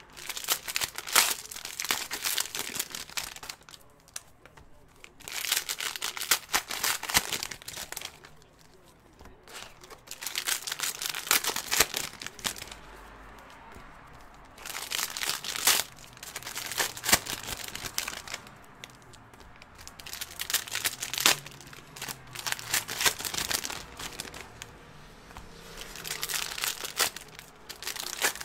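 Plastic wrappers of basketball trading card rack packs being torn open and crumpled by hand. The crinkling comes in spells of a few seconds with short quieter pauses between.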